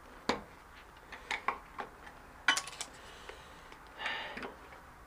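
Steel flat-head screwdriver clinking against the metal parts of a spin bike's hub while prying at the bearing: a handful of sharp metallic clicks, a quick cluster of them about two and a half seconds in, and a short scrape near the end.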